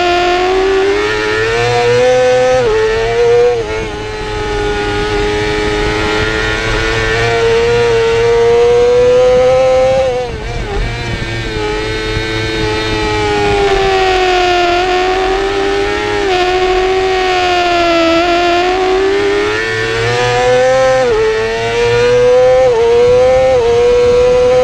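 2017 Yamaha YZF-R6's 600 cc inline-four engine screaming at high revs, heard from onboard over rushing wind. It pulls hard and climbs through the gears with quick upshifts, each one a sudden drop in pitch. About ten seconds in it goes off the throttle and down through the gears for a corner, then builds again.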